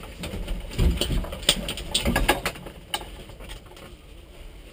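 Scattered sharp clicks and knocks of equipment being handled inside a stopped rally car's cabin, over a faint low rumble.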